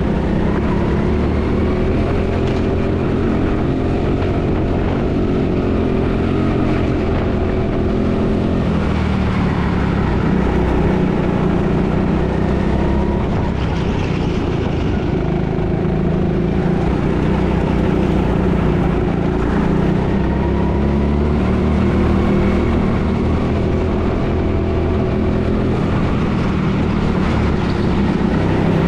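Indoor rental go-kart's motor running flat out around the track, heard from the driver's seat, its pitch rising and falling as the kart speeds up on the straights and slows for corners.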